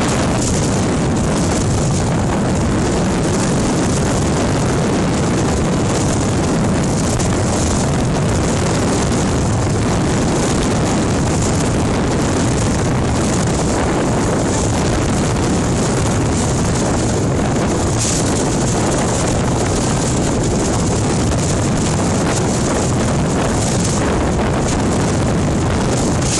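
Wind buffeting the microphone over the steady run of a speeding inflatable boat's outboard engine, with water rushing past the hull.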